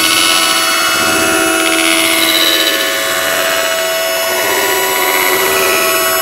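A loud, dense drone of many held tones over a steady hiss, with some pitches shifting slowly about halfway through.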